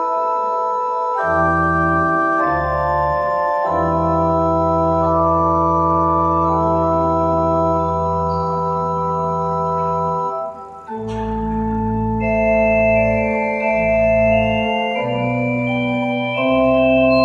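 Church pipe organ playing slow, sustained chords over deep pedal bass notes. About two-thirds of the way in there is a brief break with a click before the next chords start.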